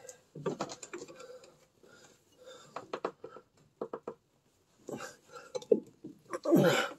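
Scattered light clinks and knocks of metal parts as a rear shock absorber's lower eye is worked onto its mounting stud, getting louder near the end as the eye starts onto the stud.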